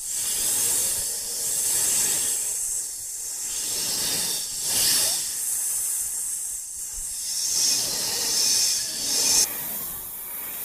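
A long hissing noise that swells and fades several times and turns abruptly duller and quieter about nine and a half seconds in.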